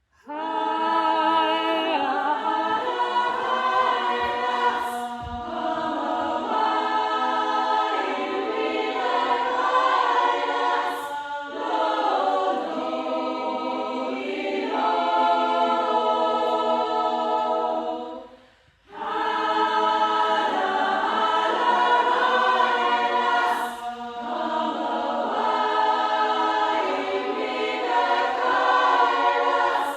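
Upper-voices chamber choir singing, with a brief pause about two-thirds of the way through before the voices come back in.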